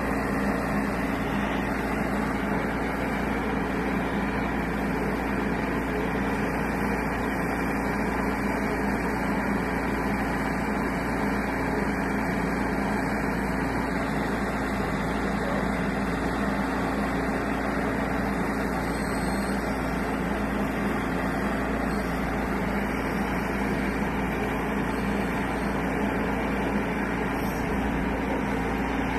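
Bobcat E10 mini excavator's diesel engine running steadily while the boom and bucket work.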